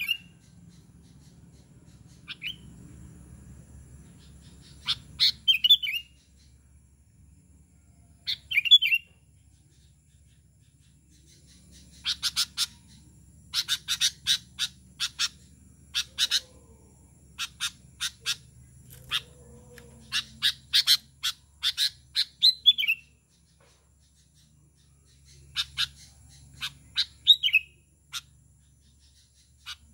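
Sooty-headed bulbul (kutilang) calling: scattered groups of sharp chirps, several ending in a short falling note, with a long run of quick chirps from about twelve to twenty-three seconds in.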